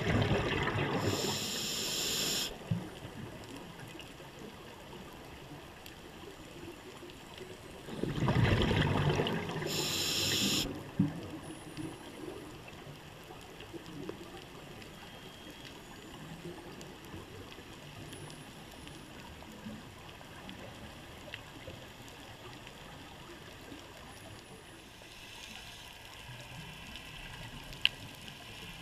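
Scuba diver breathing through a regulator: twice, at the start and about eight seconds in, a bubbling rush of breath followed by a short hiss, with low water noise between and a fainter hiss near the end.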